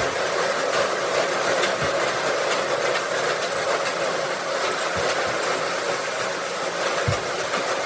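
Farm tractor engine running steadily, with a few dull low thumps.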